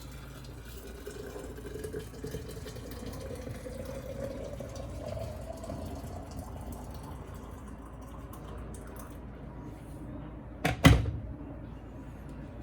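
Liquid pouring into a container, with a faint tone that rises slowly as it fills. A single sharp knock near the end.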